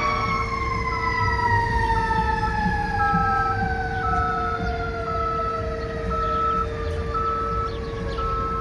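Fire apparatus's Federal Q mechanical siren winding down, its pitch falling slowly and steadily as the rotor coasts after being peaked. A short high beep repeats about once a second, and a steady hum runs underneath.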